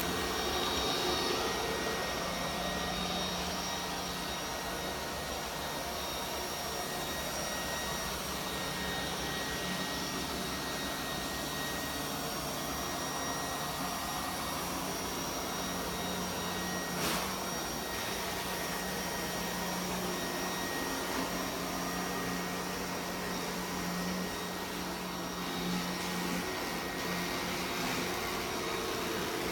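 Vorwerk Kobold VR200 robot vacuum cleaner running steadily: a motor-and-fan hum with a thin high whine over it, and a single short click about seventeen seconds in.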